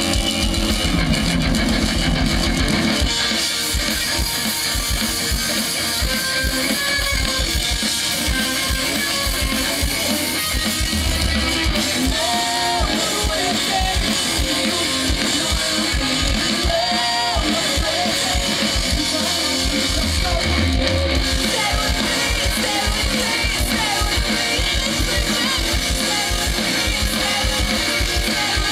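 Live rock band playing loudly: electric guitars and a driving drum kit, heard as a concert recording.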